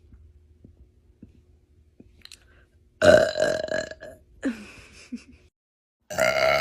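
A woman burping loudly, twice. The first burp comes about halfway through and lasts about a second, followed by a shorter, quieter sound. The second long burp starts near the end.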